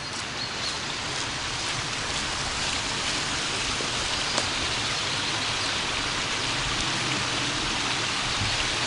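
Small forest stream rushing steadily over little cascades.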